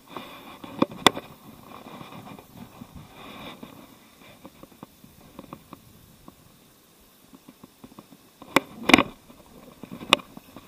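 Close handling noise from an angler working a baitcasting reel: rustling with a few sharp clicks and knocks, loudest about a second in and again near the end.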